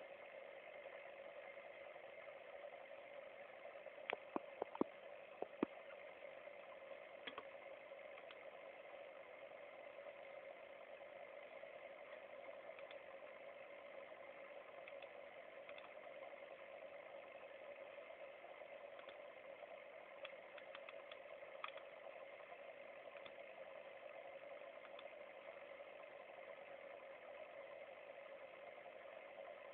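Faint steady hum and bubbling of a home aquarium's pump, with a short run of small clicks about four to six seconds in.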